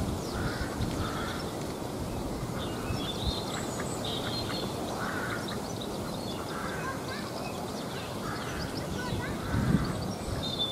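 A pair of mallards quacking quietly now and then, over a steady background rush.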